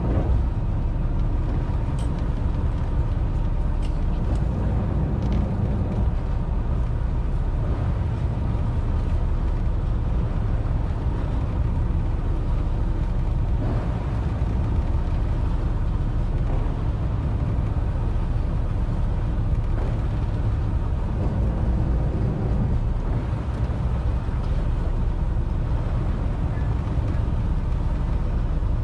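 Steady low drone of the fishing boat's engine running, with a few faint ticks in the first five seconds.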